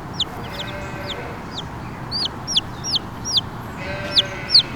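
Chicks peeping over and over: short high peeps that fall in pitch, about two or three a second. Twice there is a lower, drawn-out murmur from the broody hen underneath.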